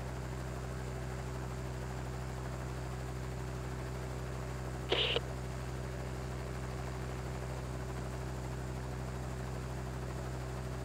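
A steady low hum that does not change, with one short sharper blip about five seconds in.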